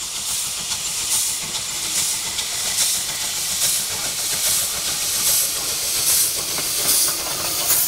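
Steam locomotive hissing steam, with slow, even exhaust beats a little more than one a second.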